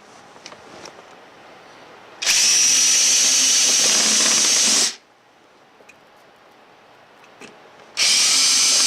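Power drill-driver spinning out control-panel screws in two runs. The first lasts about two and a half seconds; the second starts near the end.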